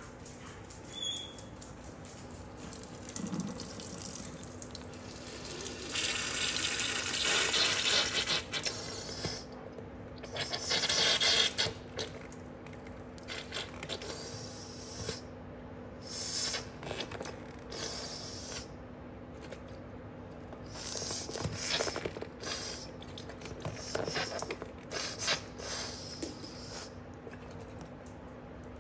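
Water squirting out of a squeezed spiky rubber dog ball and splashing into a kitchen sink in irregular spurts. The longest spurt runs for a few seconds about six seconds in and another comes around eleven seconds, with shorter ones after.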